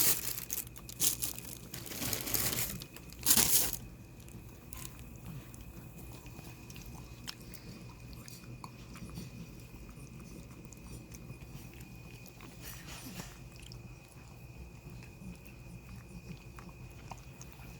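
A small dog eating, with loud crunching bites in the first four seconds. After that come fainter scattered chewing clicks.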